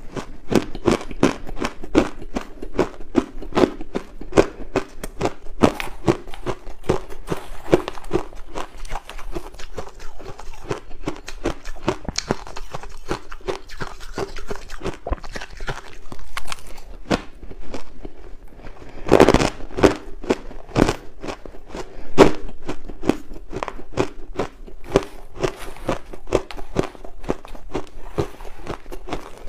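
Chewing big mouthfuls of crushed ice: a fast, unbroken run of crisp crunches, several a second, with a louder burst of crunching a little past the middle.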